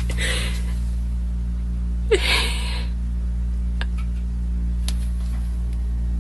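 Two short breathy gasps from a person, the second about two seconds in and louder, over a steady low hum.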